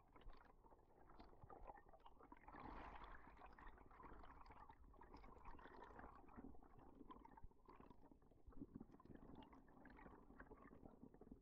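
Faint underwater reef ambience heard through an underwater camera: a low, steady crackle of many tiny clicks over muffled water noise.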